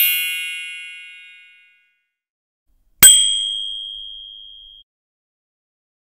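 A shimmering chime of many high tones fading away over a second or two, then about three seconds in a single sharp bell ding whose one high tone rings on and fades over about two seconds.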